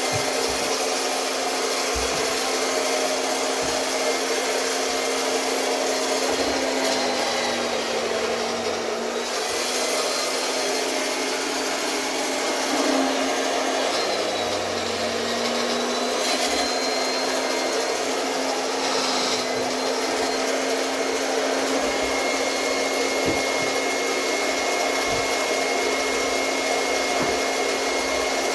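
Octa RC-100 round-knife electric cloth cutting machine running steadily as it cuts fabric, its motor hum dipping slightly in pitch a few times.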